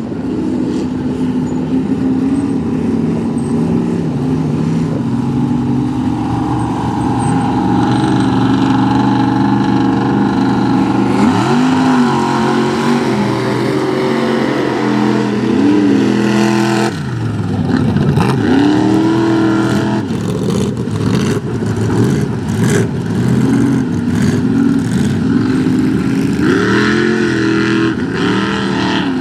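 Mud-bog truck engines running loudly and revving, their pitch rising and falling again and again. The sound changes abruptly about 17 seconds in, and another engine revs hard after that.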